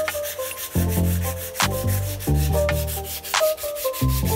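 Sandpaper rubbing by hand on a wooden axe handle, heard over background music with a steady beat and a bass line.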